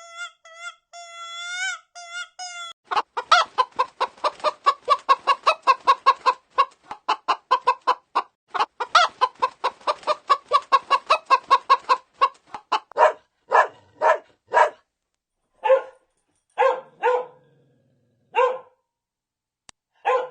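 Chicken clucking: rapid clucks at about four or five a second that slow to a few spaced clucks about twelve seconds in. Before the clucking starts, a short run of high, pitched, wavering calls.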